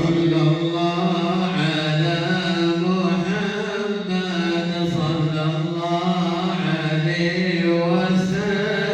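Men's voices chanting a salawat, a devotional Islamic prayer on the Prophet, together in long held notes with no accompaniment.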